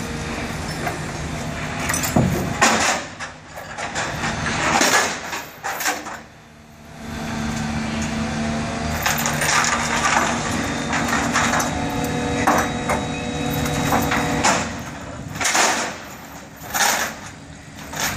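Construction-site crane lift: a steady engine hum with irregular knocks and clattering bursts scattered through it.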